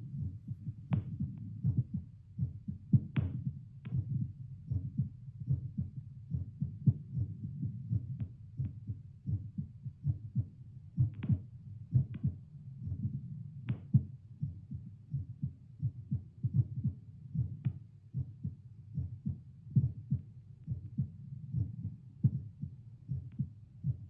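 Resting heartbeat picked up by a Littmann CORE digital stethoscope on the chest and played out through a speaker: a steady run of low, evenly spaced beats, with a few sharp clicks over them.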